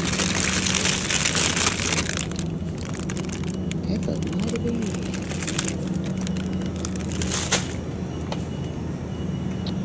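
Grocery store background: a steady low hum, with loud rustling and crackling close by for the first couple of seconds, a faint voice in the background around the middle, and one sharp click near the end.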